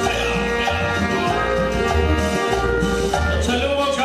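Loud Latin dance music in a salsa style, played over a sonidero sound system, with a steady repeating bass line.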